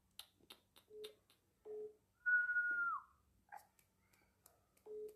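Phone-line beeps: two short, low beeps, then about three seconds later another two. Between the pairs comes one high steady tone, the loudest sound, lasting under a second and dropping in pitch as it ends, along with scattered light clicks.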